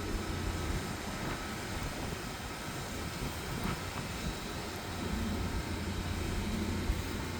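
Sewer jetter running steadily as it drives high-pressure water through the line: a constant low engine hum under a broad hiss.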